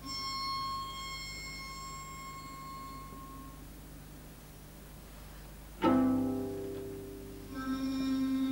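Solo cello playing: a high note sounds at the start and fades away over about three seconds. About six seconds in a sudden, louder low note strikes and dies away, and near the end a held, bowed low note begins.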